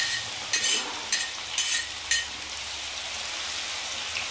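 Chopped onion sizzling in hot oil in a metal kadhai. There are about five short scrapes of a spatula stirring it in the first two seconds, then a steady sizzle.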